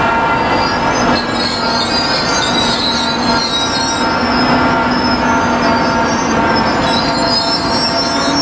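Rail vehicle's wheels squealing against the rails, a high squeal that starts about half a second in and lasts until near the end, over a steady hum.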